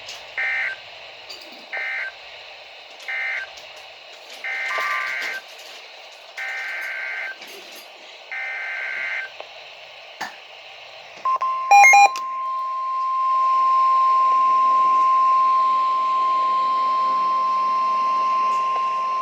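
Emergency Alert System data bursts over weather radio: three short warbling end-of-message bursts, then three longer header bursts for the next warning. After a brief crackle, the steady 1050 Hz NOAA Weather Radio warning alarm tone follows.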